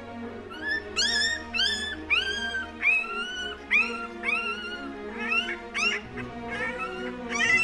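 Young Shiba Inu puppy crying: a run of short, high-pitched rising whines, about two a second, starting about half a second in, over background music.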